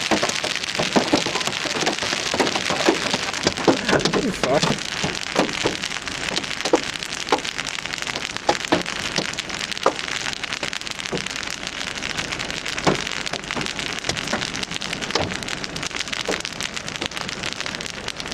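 Heavy rain and hail pelting a car: a steady hiss of rain with irregular sharp knocks of hailstones striking the car's body.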